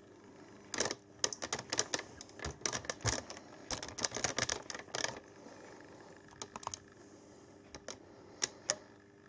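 A quick, uneven run of light clicks and ticks for about four seconds, thinning to a few scattered clicks, over a faint steady hum.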